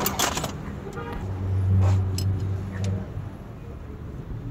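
A motor vehicle's engine running in the background: a low hum that swells to its loudest about two seconds in and fades after three. A few sharp metallic clicks come from tools and parts being handled at the engine.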